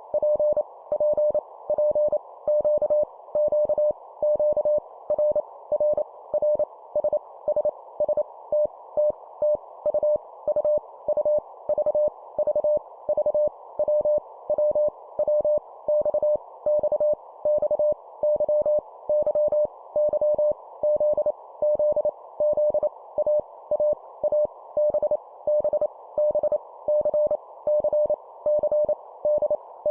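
Morse code (CW) practice tone at 25 words per minute: a single steady tone keyed on and off in dots and dashes, each letter sent three times, over a steady background hiss.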